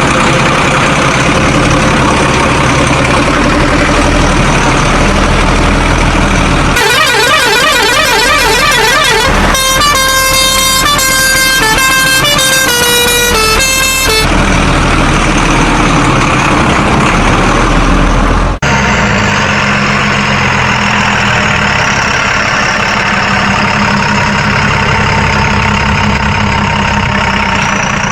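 A string of truck sound effects: an engine running with a low rumble, then a quickly wobbling siren, then a short run of stepped horn tones. After a sudden cut comes a long, steady horn over engine noise.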